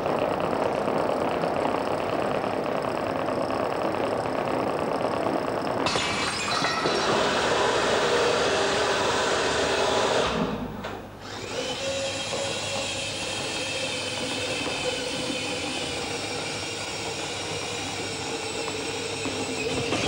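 Small electric motors and mechanism of a motorised kinetic machine running with a steady whirring. The sound changes character about six seconds in and dips briefly near the middle.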